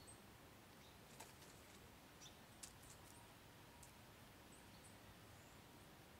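Near silence: faint outdoor background with a few soft clicks and some brief high chirps.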